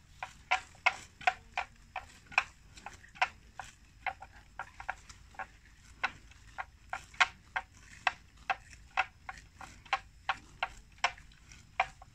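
Water buffalo grazing, tearing off mouthfuls of grass: short, crisp ripping snaps in an uneven run of about two or three a second.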